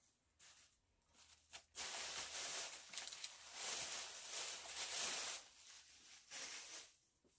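Thin plastic bag rustling and crinkling as it is handled, in a long stretch from a little under two seconds in, then a shorter rustle near the end.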